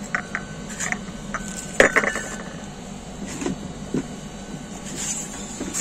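Porcelain teacup and saucer clinking as they are handled: light clicks with a short ringing tone, the sharpest clink a little under two seconds in, then a few softer knocks.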